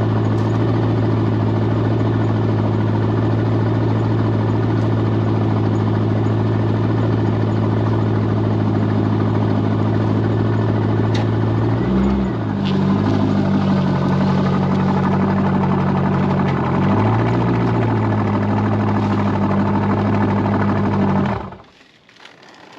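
C5 Corvette V8 idling steadily. About halfway through the idle rises and holds higher for about five seconds, then settles back, and shortly before the end the engine is switched off.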